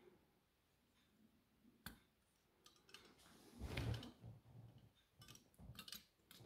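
Faint small clicks and taps of a replacement circuit board being pressed onto a lithium-ion battery pack's plastic cell holder, with a sharp click about two seconds in and a louder knock and rustle of handling around four seconds.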